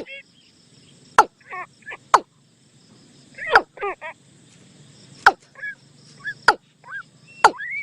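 Bird-call lure recording: repeated sharp clicks about once a second, alternating with short chirping calls that slide up and down in pitch.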